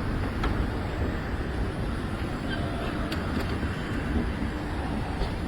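Escalators running: a steady low mechanical rumble with a few faint clicks.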